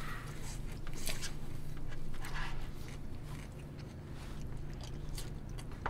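People chewing and biting food, with scattered small clicks of chopsticks against bowls and dishes.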